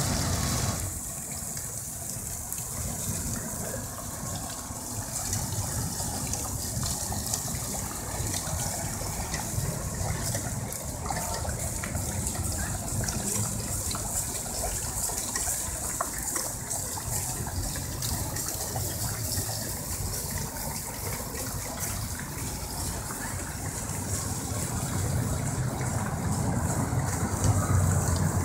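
Water jets from Tinguely's kinetic fountain sculptures spraying and splashing into the pool, a steady hiss, over a low rumble that grows louder near the end.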